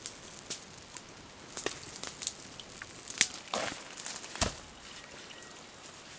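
Light scuffs and clicks of movement on dry leaf litter, then a single heavy thud about four and a half seconds in as a rock is set down on the hard ground.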